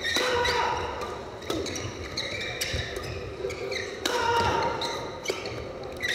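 Badminton doubles rally: sharp racket strokes on the shuttlecock a second or two apart, with court shoes squeaking on the hall floor.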